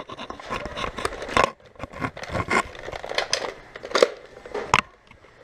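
Close-up rustling of a Nerf foam-dart blaster being handled while its holder moves quickly, with several sharp plastic clicks and knocks scattered through it.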